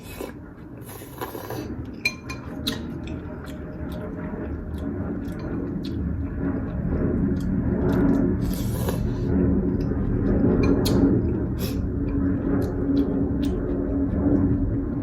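Close-miked eating sounds: chewing and wet mouth clicks, with now and then a clink of a utensil against a bowl. Under them is a low, steady humming sound that swells from about six seconds in.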